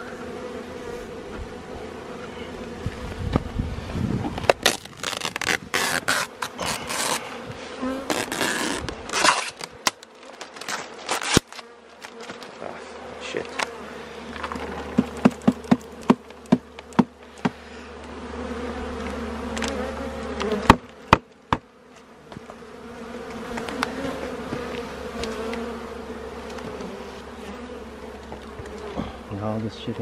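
A swarm of honeybees buzzing around an open hive box of frames, a steady hum. Over it come many sharp knocks and clicks, thickest through the first two-thirds.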